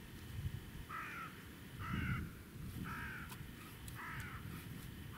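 A crow cawing four times, about once a second, over a low rumbling noise.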